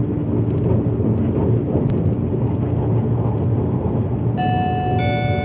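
Steady running noise of a JR E657-series Tokiwa limited express at speed, heard from inside the carriage as a low, even rumble. About a second before the end, a few sustained musical notes begin over it.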